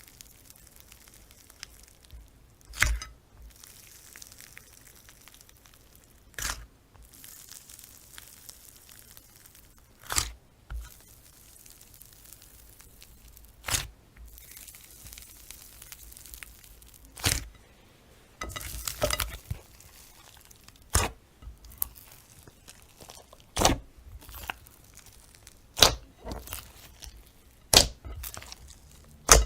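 Slime handled by hand: a sharp crackling pop about every two to four seconds, with softer sticky crackling between them.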